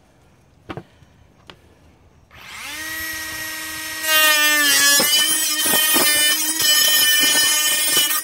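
Ridgid 18V subcompact multi-material saw making a plunge cut. After two light clicks, the motor spins up about two seconds in to a steady whine. Near the halfway point the blade plunges into the board and a loud, rough cutting noise joins it, the pitch dipping under the load. It cuts off abruptly at the end.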